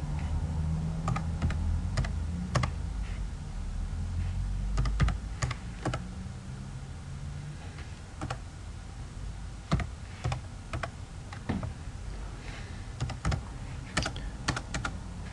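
Computer keyboard keystrokes, irregular clicks in short runs as numbers are typed into a spreadsheet. A low hum sits under them, louder for the first five seconds.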